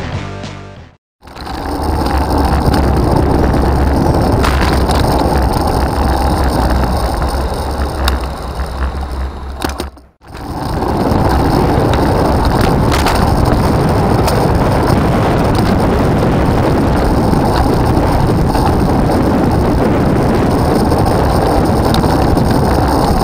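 Riding noise picked up by a handlebar-mounted bicycle camera: steady wind rumble on the microphone with road and tyre noise, in two stretches split by a brief cut about ten seconds in.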